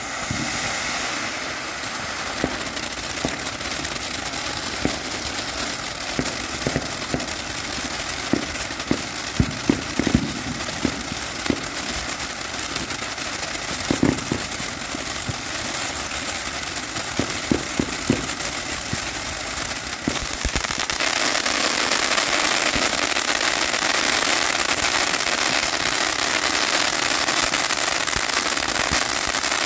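Three Winda Snow Cone firework fountains burning together: a steady rushing hiss of spraying sparks with scattered sharp crackles and pops. About 21 s in, the hiss becomes louder and fuller.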